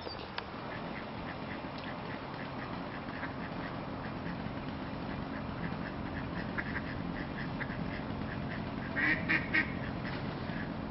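Ducks quacking: a long run of short, repeated calls, then three louder quacks about nine seconds in.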